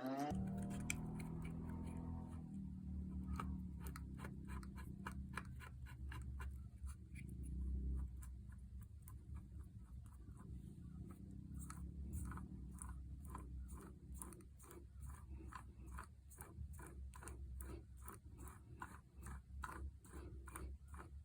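Repeated hand scraping strokes, about two to three a second, over a steady low hum.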